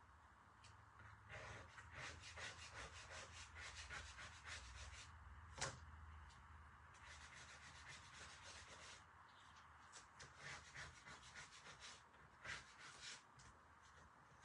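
Faint, quick scratching strokes of a hand paint scraper scraping paint off a painted sign to distress it. The paint lifts where wax was laid under it. The strokes come in runs with short pauses and a single sharp click about halfway through.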